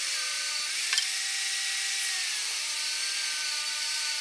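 Jobsite table saw ripping a scrap 2x4 lengthwise into 1.5-inch strips: the blade runs steadily under load with a whine that dips a little around two seconds in. A short knock about a second in.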